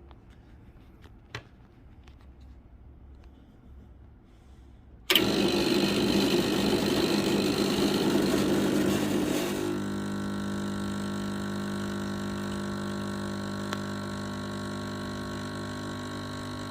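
Espresso machine pump switching on to pull a shot, starting suddenly about five seconds in, loudest for the first few seconds, then settling into a steady hum while the shot extracts. A few light clicks come before it.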